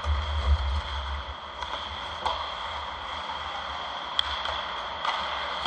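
Ice hockey play heard from rinkside: a steady hiss of skates on ice and arena noise with a faint steady high tone, broken by a few sharp clicks of sticks and puck, about two, four and five seconds in. A low rumble is strongest in the first second.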